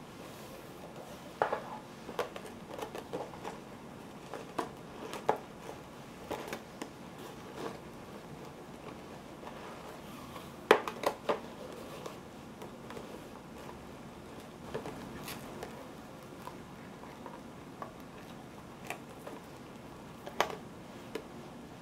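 Handling sounds of gift packing: thin white wrapping rustling and an organza ribbon being drawn around and tied on a clear plastic box. Irregular light clicks and taps run throughout, the sharpest about eleven seconds in.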